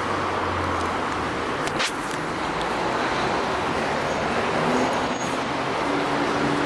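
Street traffic: steady road noise of cars driving past, with a low engine hum that fades about a second in.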